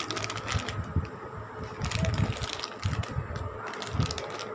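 Clear plastic packets of dried vadam crinkling and rustling in the hands, in irregular short crackles with a few soft low knocks as they are picked up and moved about.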